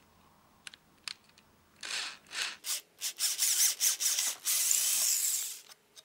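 Power drill with a 6 mm metalworking twist bit boring into plywood. It starts in a few short bursts, then runs steadily as the bit cuts through, and stops near the end.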